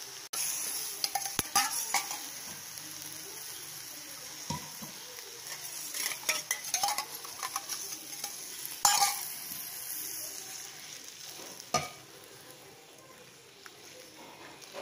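Crab masala frying with a steady sizzle in a clay pot, a spatula scraping and stirring it with scattered knocks. About nine seconds in, water poured in from a steel vessel hits the hot pan with a sudden loud rush, after which the sizzle dies down as the pot is stirred.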